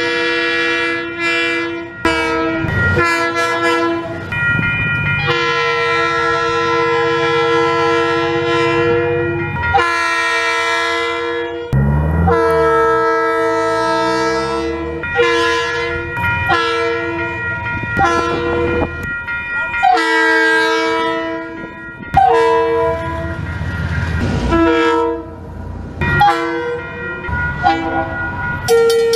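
KiwiRail diesel locomotives sounding their several-note air horns in a series of short and long blasts, one held for several seconds. Locomotive rumble sits beneath the horns at times.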